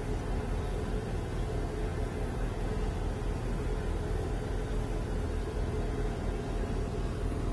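Steady drone of a parked U.S. Air Force C-17 transport aircraft's running power plant: a constant low rumble with a steady mid-pitched hum over it.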